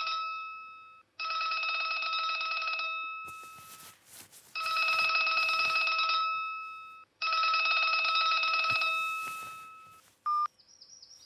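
Mobile phone ringtone: a bell-like ring about a second and a half long, sounding three more times a couple of seconds apart. Near the end comes one short beep from the handset's keys.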